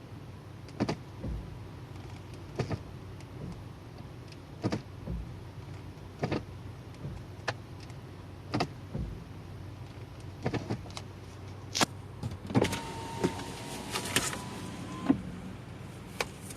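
Car's automatic transmission making an abnormal noise with the engine idling in gear: sharp knocks every one to two seconds over a low hum, and a thin whine for about two and a half seconds near the end.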